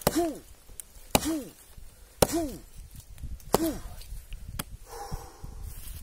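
Small hatchet chopping into a rotten log: four blows about a second apart, each a sharp strike followed by a short ringing tone, then a lighter tap.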